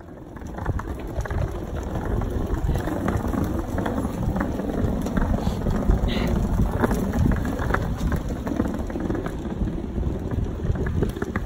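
Rainy street sound on wet brick paving: a wheeled suitcase rumbling and knocking over the bricks, with rain and wind buffeting the phone microphone. A short high squeak comes about halfway through.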